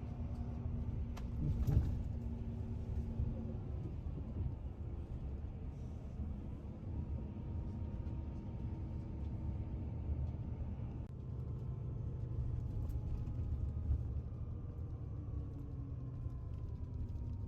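Steady low rumble of a moving road vehicle, with faint hum tones over it and a brief louder knock about two seconds in.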